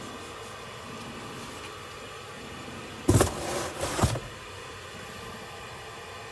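Steady hum inside a car, broken about three seconds in by a loud clatter about a second long, with a knock at its start and another at its end.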